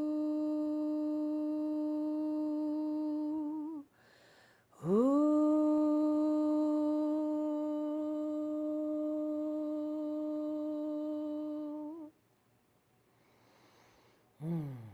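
A woman's sustained vocal toning, hummed: a long steady note, a quick breath in about four seconds in, then a second long note that swoops up from low into the same pitch and holds. Each note ends with a slight wobble, the second about twelve seconds in. Near the end comes a short falling vocal sigh.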